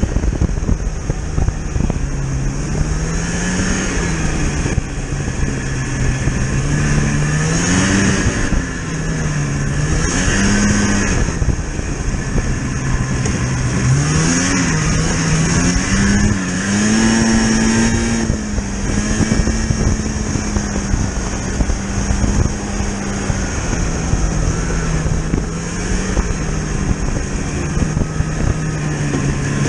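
A vehicle's engine running under way, its pitch rising and falling again and again as it speeds up and eases off, over a steady hiss.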